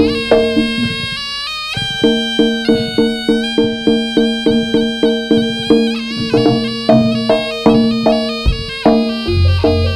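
Live jaranan ensemble music: a reedy slompret (Javanese shawm) plays a wavering melody over held low tones and steady percussion beating about twice a second.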